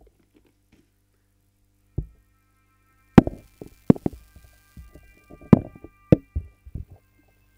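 Irregular loud knocks and thumps from hand puppets being handled and bumped close to a webcam microphone, a single knock first and then a quick uneven run of them. Faint steady high tones, like soft music, sound underneath.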